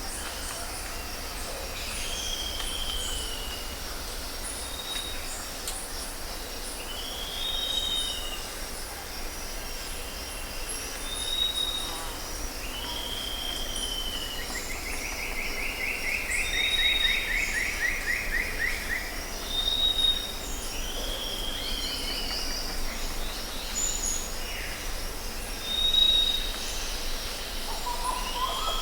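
Several wild birds calling over a steady drone of insects. A clear high note repeats every few seconds among arching chirps, and a falling buzzy trill runs for a few seconds midway.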